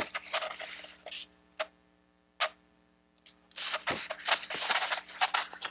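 A stiff paper map print rustling and crinkling as it is held and unrolled, in a crackle of small clicks. There is a quiet gap of about two seconds in the middle, broken by two single clicks.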